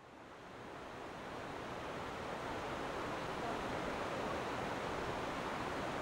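River water rushing steadily, an even wash of noise with no distinct splashes. It fades in over the first couple of seconds, then holds level.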